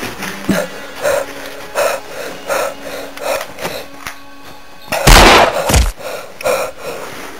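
Heavy breathing close to the microphone, one breath about every 0.7 s, over a faint low steady tone. About five seconds in come two loud bangs, the first ringing on for about half a second.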